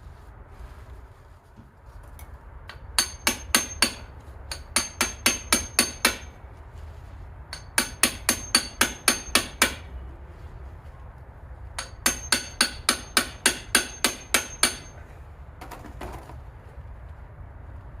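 Rapid metal-on-metal hammering blows, about five a second, in bursts of several strikes with short pauses between, and a brief last burst near the end, over a steady low hum.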